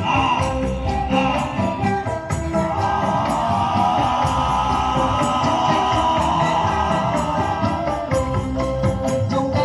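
Loud music with a steady beat and jingling, tambourine-like percussion, with a held melodic line through the middle.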